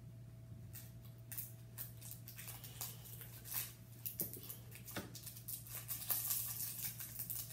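Small plastic bag crinkling and rustling as it is handled and tipped to pour its contents into a bowl: quiet, irregular clicks and crackles that grow busier near the end.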